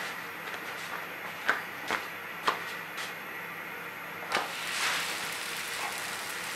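A few light clicks and knocks, then about four seconds in a raw paratha is laid onto a hot iron tawa and patted flat by hand, with a brief soft hiss as the dough settles on the griddle.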